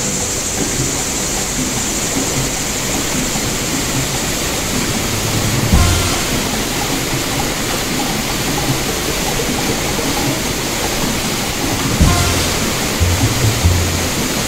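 Shallow river riffle rushing over rocks around a kayak's bow, a steady loud hiss of moving water, with two dull knocks, about six and twelve seconds in.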